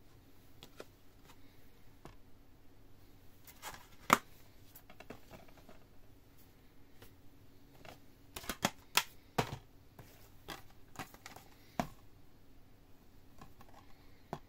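Plastic DVD cases being handled: scattered clicks and snaps of the plastic, the sharpest about four seconds in and a quick run of them between about eight and ten seconds in while a case is opened and its disc shown. A faint steady hum lies underneath.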